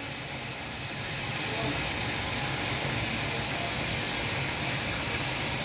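Steady background hiss with a faint low hum and no distinct sound events.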